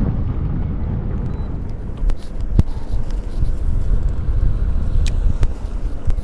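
Low wind rumble on the microphone aboard a fishing boat, with a few sharp clicks and knocks, about four of them.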